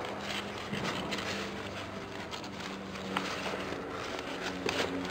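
Softbox diffuser fabric rustling as it is handled and fitted, with a few sharp clicks, over a low steady hum.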